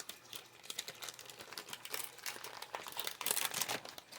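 Crinkling of packaging and paper as packs of craft paper strips are handled: rapid, irregular crackles, busier near the end.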